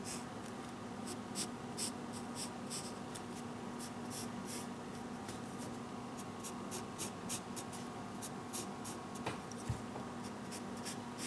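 Pencil scratching on paper in many short, irregular strokes as the lines of a drawing are traced over and darkened.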